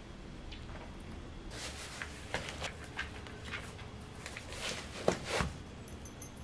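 Shoelaces on a running shoe being pulled and tied: faint rustling and light clicks, with a sharper tap about five seconds in.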